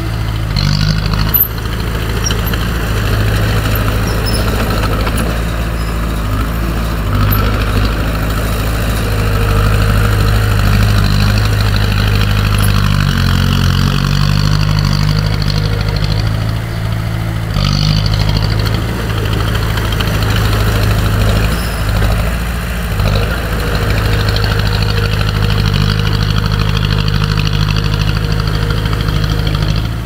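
Diesel engine of heavy earthmoving machinery running steadily, its engine speed rising and falling a little now and then.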